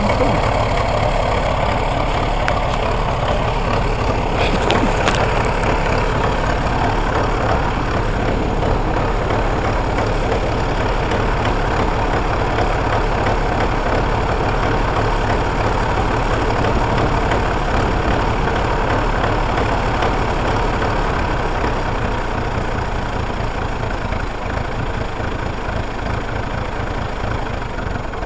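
1950 Fordson E27N tractor engine idling steadily with an even low chug, easing a little quieter near the end.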